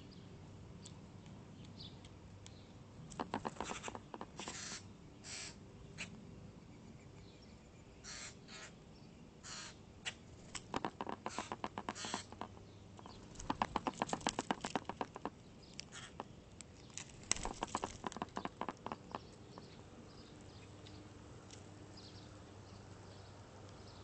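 Common grackle at a seed feeder close to the microphone: several bursts of rapid clicking mixed with short harsh rasps, a few seconds apart, over a faint low hum.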